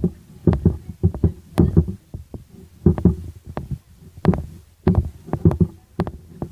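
Microphone noise: irregular low thumps with sharp clicks, one or two a second.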